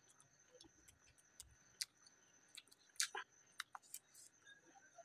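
Quiet eating by hand: a scattering of soft, sharp mouth clicks and chewing sounds as pav bhaji is eaten, about a dozen small clicks spread unevenly, over a faint steady high whine.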